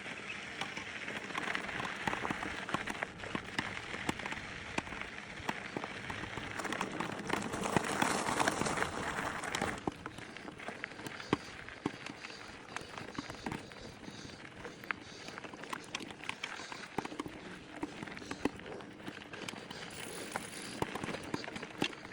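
Mountain bike riding over a rough, stony track: a steady rushing hiss with many small crunches and rattles. The hiss drops off sharply about ten seconds in, while the crunches and clicks go on.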